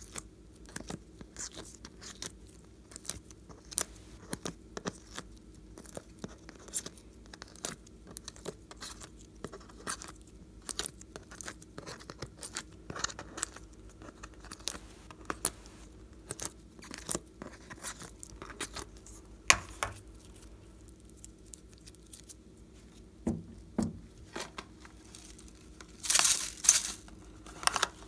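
Sticky little pops and tearing crackles as rubbery pink filling is peeled out of the wells of a plastic palette, a few scattered clicks a second, with a louder rustling crackle near the end.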